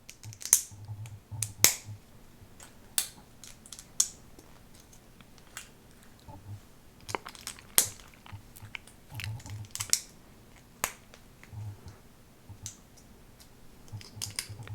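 Lego bricks being handled and pressed together: sharp plastic clicks at irregular intervals, with soft low handling thuds between them.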